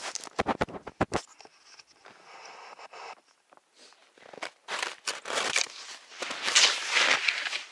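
A few sharp knocks and rubbing as the camera is handled and set down. Then crunching and squeaking of dry, frozen snow under wide hunting skis as a man steps and slides through deep snow, loudest a few seconds before the end.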